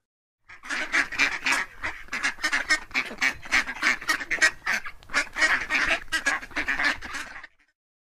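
Ducks quacking: a rapid, unbroken run of many quacks that starts about half a second in and cuts off abruptly a little after seven seconds.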